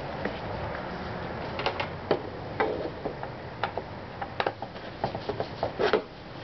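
Irregular clicks and light knocks of a Phillips screwdriver working screws out of a scooter's plastic body cover, over a steady background hiss.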